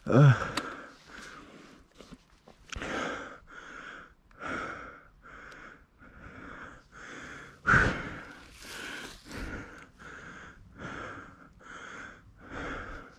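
A person breathing hard and out of breath, with heavy breaths in and out about once a second and a louder gasp about eight seconds in: the panting of someone worn out from exertion.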